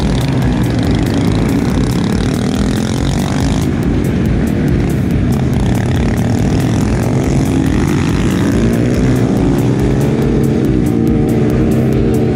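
Honda Grom 125cc single-cylinder minibike engines revving hard as a pack pulls away together, the pitch climbing and dropping again as the riders accelerate and shift.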